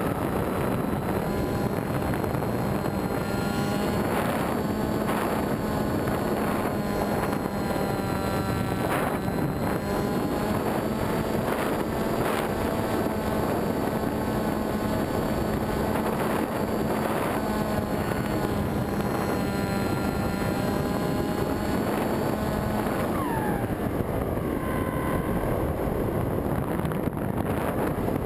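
Electric motor and propeller of a foam flying wing in flight, heard from on board: a whine whose pitch rises and falls with throttle, over a steady rush of wind on the microphone. A steady low hum in it drops out about five seconds before the end.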